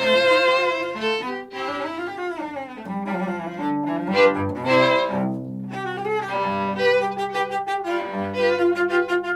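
String trio of two violins and a cello playing Baroque music: held notes with vibrato, a quick descending passage about five seconds in, then short, rapid bow strokes near the end.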